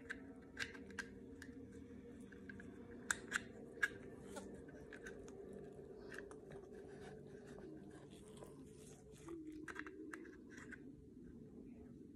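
Small clicks and taps of an HK P30 pistol's frame and parts being handled with gloved hands, with three sharper clicks about three to four seconds in, over a steady low hum.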